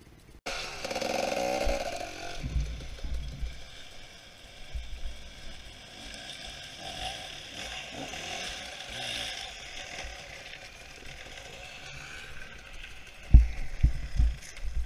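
Enduro dirt-bike engines running and revving on a rocky trail, with clattering and scraping from stones and the bikes. Several heavy low thumps near the end.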